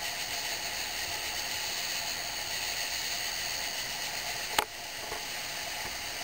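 Steady chorus of night insects, an even high buzzing haze, with one sharp click about four and a half seconds in.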